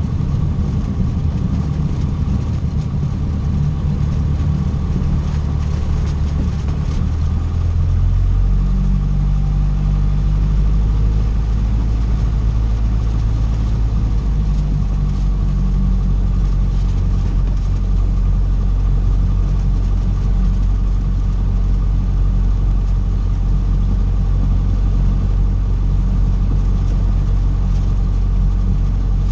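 Cessna 150's Continental O-200 four-cylinder engine and propeller running steadily. About eight seconds in, the engine note shifts and gets louder, then holds steady.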